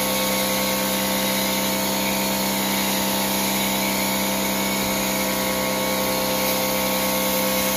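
Pressure washer running steadily, its motor and pump giving an even hum of several steady tones under the hiss of the foam cannon spraying soapy foam.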